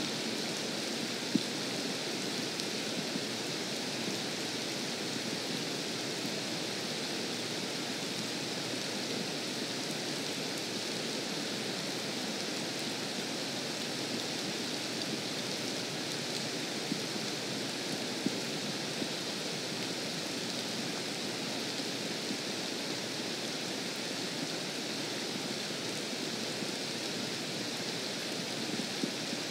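Steady rain falling on a lake's surface, a continuous even hiss, with a few sharp single ticks of drops, the loudest about a second in.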